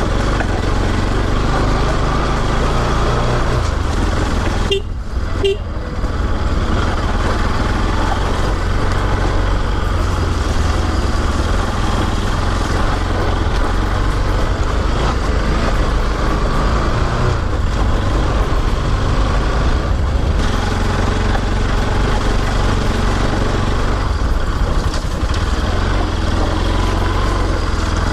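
Motorcycle engine running steadily under way on a rough dirt road, with wind noise over the microphone. About five seconds in the sound briefly drops and two short tones are heard.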